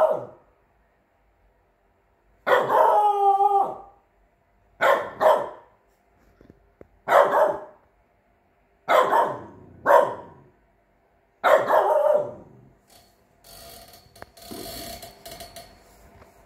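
Three-month-old chow chow × French bulldog puppy giving alert barks at the patio door: about seven puppy barks spaced a second or two apart, the first drawn out and wavering like a howl, then softer sounds near the end.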